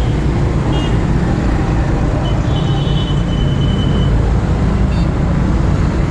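Steady low rumble of a running motor vehicle, with a faint thin high tone for a second or two in the middle.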